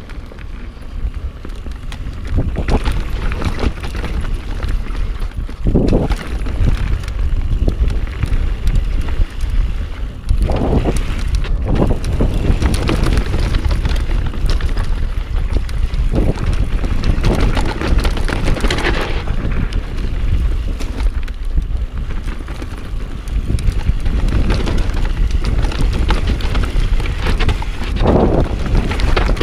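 A mountain bike ridden fast downhill on a dirt trail: wind buffeting the microphone under a steady clatter and rattle of tyres, chain and frame over roots and bumps, with a few louder rushes along the way.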